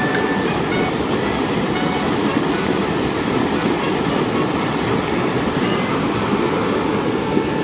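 Small creek water pouring over a rock step into a plunge pool: a steady, even rushing noise.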